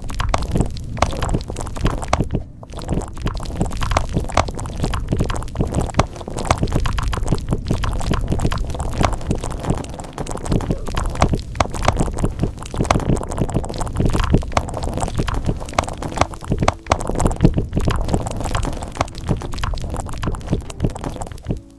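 Fast, continuous typing on a keyboard: a dense run of clacking keystrokes with a deep undertone, pausing briefly about two and a half seconds in.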